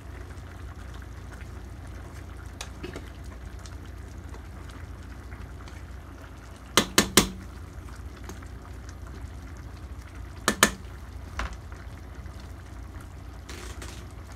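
Cream stew simmering in an aluminium pot as it is stirred with a wooden spoon: a steady bubbling hiss, with sharp knocks of the spoon against the pot, three in quick succession about seven seconds in and two more about ten and a half seconds in.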